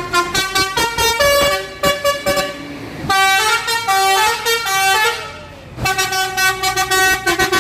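Telolet horn of an intercity bus: a multi-tone musical horn playing three quick runs of tooting notes that change pitch, with short breaks between them.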